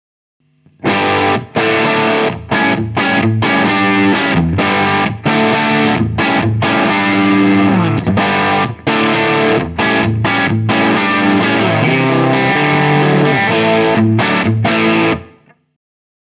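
Distorted electric guitar played through a Laney LA30BL 30-watt EL34 tube amp into a 2x12 cabinet with Celestion Greenback speakers: a riff of chords and single notes broken by several short stops. It starts about a second in and cuts off near the end.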